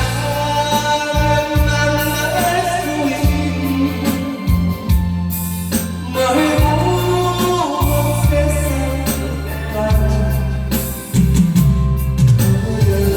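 A Korean trot song sung over instrumental accompaniment, the voice holding long, sliding notes above a steady bass line.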